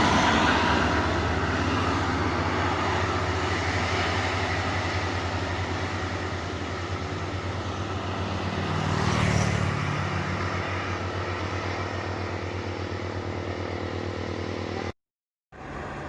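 Heavy diesel vehicle engine running steadily under load on an uphill climb, with a second vehicle passing close and loud about nine seconds in. The sound cuts out for a moment near the end and resumes quieter.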